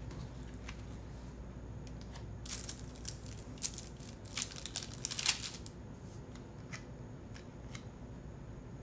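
Paper sticker sheets being handled: light rustling and crackling with scattered ticks, busiest from about two and a half to five and a half seconds in.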